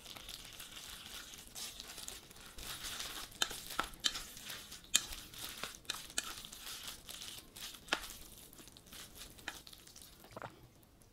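Bibim naengmyeon noodles being tossed with spicy sauce using wooden chopsticks in a stainless steel bowl: wet squishing and rustling with sharp clicks of the chopsticks against the bowl, dying down over the last few seconds.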